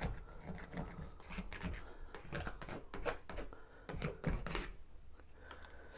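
Peel-and-stick wallpaper being rubbed down against the wall by hand to push out air bubbles: irregular short rustling and scraping strokes with light taps.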